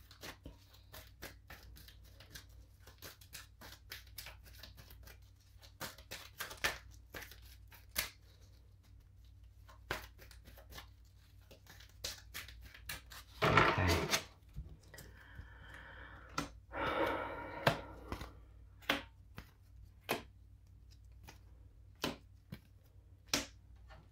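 A deck of reading cards being shuffled by hand: many soft clicks and slaps of cards, with two louder rustling passes about halfway through.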